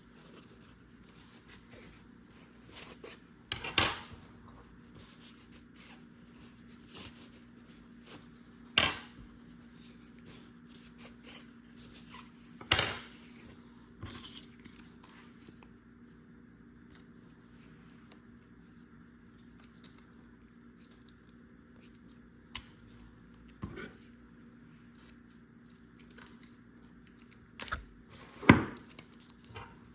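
Metal parts and tools clanking on a workbench during reassembly of a pool pump motor: several sharp, separate clanks a few seconds apart, the loudest near the end, over a steady low hum.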